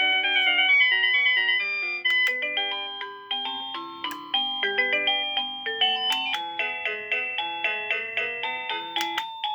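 AVANTEK wireless doorbell receiver playing one of its electronic chime melodies through its small speaker. About two seconds in, that tune breaks off and a different melody starts as the next ringtone is selected.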